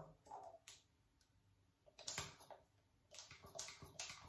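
Faint clicks of a cupping set's hand vacuum pump as its trigger is squeezed to draw a plastic cup down onto the shoulder, a run of them starting about halfway through.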